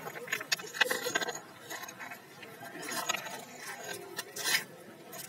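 A pebble scraping and skittering across concrete paving slabs as a Jack Russell terrier pushes it around, in a few irregular bursts.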